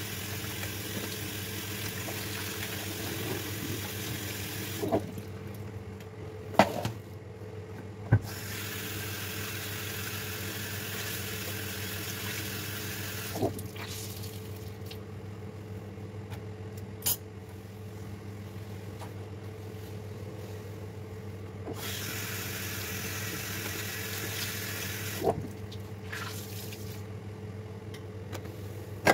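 Kitchen tap running into a sink while dishes are rinsed and scrubbed with a sponge; the water is turned off and on again several times, with a few sharp clinks of dishes against the sink. A steady low hum runs underneath.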